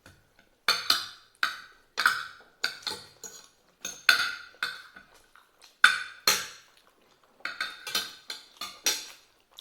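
Metal cutlery repeatedly clinking and scraping against a ceramic plate, about twenty irregular sharp clinks, each ringing briefly.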